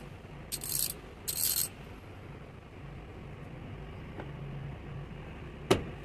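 The ratchet from a VEVOR socket set is worked back and forth in three short spells of rapid clicking in the first two seconds. A single sharp click comes near the end as a socket is handled in the plastic case.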